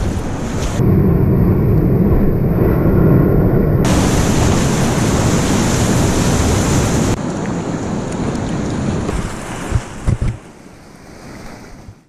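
Whitewater rapids rushing and splashing around a kayak, with wind buffeting the microphone. About a second in, the rush turns muffled for roughly three seconds, then comes back full. A few knocks come near ten seconds in, and the sound drops much quieter near the end.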